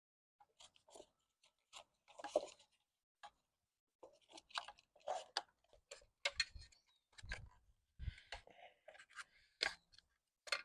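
Irregular clicks, taps and short rustles of hand tools and small parts as the old ignition coil is disconnected and removed from a Honda Express NC50 moped, with a louder rustle about two seconds in and a few dull knocks near the middle.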